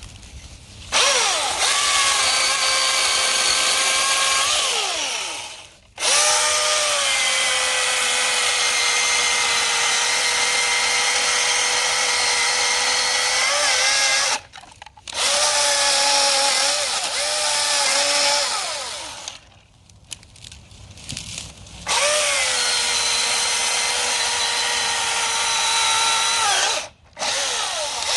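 Milwaukee M18 FUEL 16-inch battery chainsaw cutting wood in five runs of several seconds each, a high, steady electric whine with short pauses between runs. Its pitch winds down each time the trigger is released.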